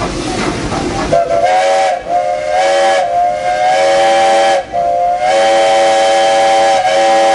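Vulcan steam locomotive's whistle, heard from the cab, sounding a chord of several notes in three blasts: a short one, then two long ones. Before the whistle, for about the first second, the engine and cars can be heard running and rattling.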